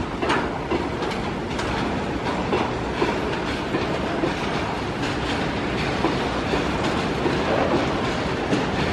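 Covered bogie goods wagons of a freight train rolling past, a steady rumble with wheels clattering on the rails.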